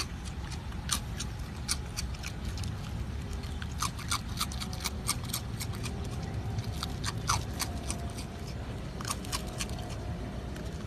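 Raccoon crunching dry coloured cereal rings: irregular clusters of sharp, crisp crunches.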